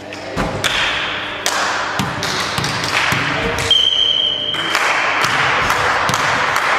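Volleyballs being struck and bouncing on a hard gym floor: a string of sharp smacks and thuds, one after another, echoing in a large hall. A brief high steady tone sounds near the middle.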